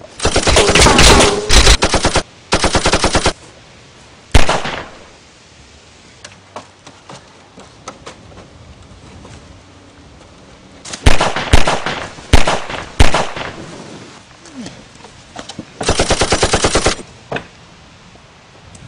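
Automatic gunfire sound effects: a long rapid-fire burst and a shorter one at the start, a single shot, then after a lull a cluster of shots and short bursts, another rapid burst, and a last single shot.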